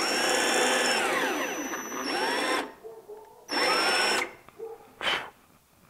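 Cordless drill boring a half-inch hole into plywood with a Forstner bit. The motor whine rises and falls through about two and a half seconds of cutting, then comes a second, shorter burst about three and a half seconds in.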